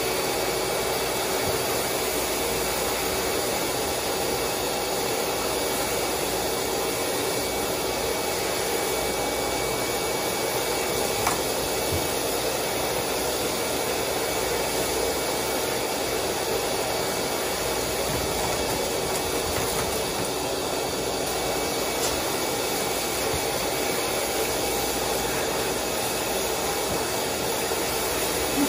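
Steady rushing of water from a hand-held hose sprayer rinsing a wet dog, over an even mechanical hum.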